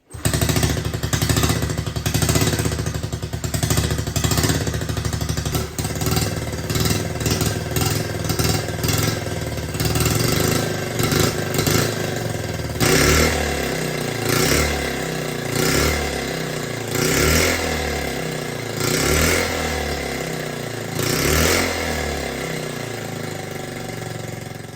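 A 1969 Honda Z50A mini trail bike's small single-cylinder four-stroke engine runs freshly reassembled after restoration. From about halfway through, the throttle is blipped in short revs roughly every two seconds.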